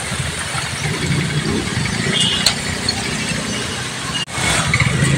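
Motorcycle engines running at low speed through a flooded street, over a steady rumble of street noise. The sound drops out briefly about four seconds in.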